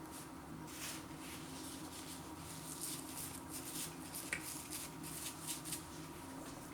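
Faint crackles and soft clicks of a flaky pastry pasty being handled and eaten, scattered irregularly over a low steady hum.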